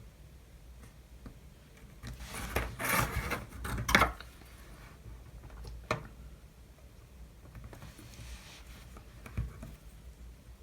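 Small workbench tools and a thin wooden capping strip being handled: a few seconds of rubbing and rustling, ending in a sharp knock, then two more light knocks a few seconds apart.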